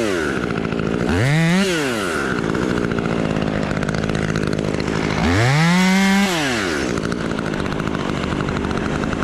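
Chainsaw idling, revved up and let back down to idle: a rev falling away just as the clip opens, a short one about a second in, and a longer one past the middle.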